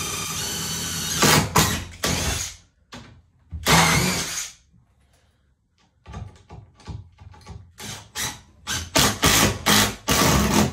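Power drill driving screws to fix a sliding door's bottom track: one steady run at the start, then a series of short bursts as the screws are driven home.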